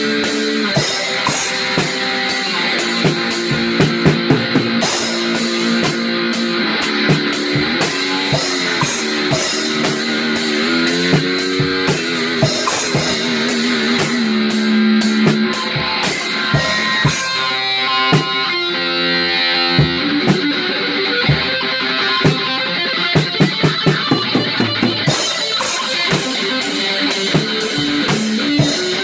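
Rock music: a guitar playing a lead line with bent notes and vibrato over a drum kit.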